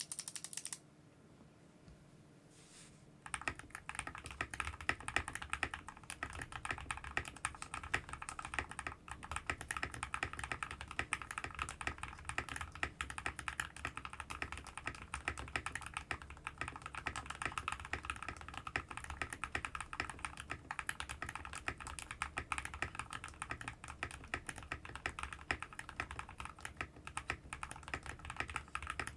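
Keydous NJ68 Pro mechanical keyboard with hand-lubed Everglide Aqua King linear switches, tape and foam mods, typed on continuously in a fast, even run of keystrokes that starts about three seconds in; a creamy, muted clacking.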